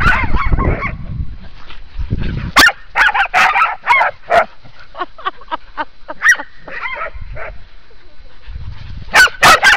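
Several Groenendael Belgian Shepherd dogs barking and yipping excitedly, many overlapping short calls, in play. The loudest barks come in a quick burst near the end.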